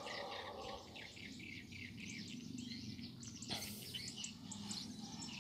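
Faint background ambience with small birds chirping repeatedly, and a single sharp click about three and a half seconds in.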